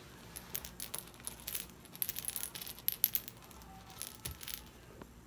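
Small ball-shaped cat toy rattling in quick, irregular clicks as a kitten bats and chews it, busiest about two to three seconds in.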